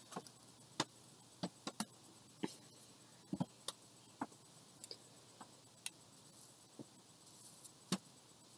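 About a dozen faint, irregular clicks and taps from a small glass piece and its bowl being handled, with a sharper click about a second in and another near the end.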